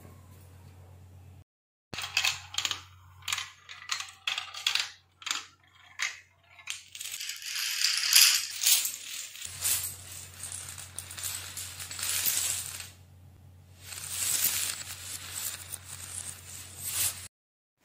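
Chains of toppling dominoes clattering: a few separate clicks about two seconds in, building into a dense rapid clatter of many tiles falling, with a short break near the end, then stopping abruptly. A low steady hum lies underneath at the start and in the later part.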